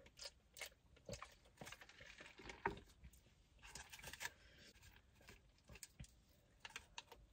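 Faint crackling of a paper burger wrapper and small clicks as hands handle and lift a burger, with a few slightly louder rustles about two and a half and four seconds in.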